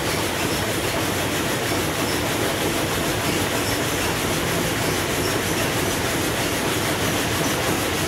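Steady mechanical noise of sawmill machinery running, an even din with no breaks.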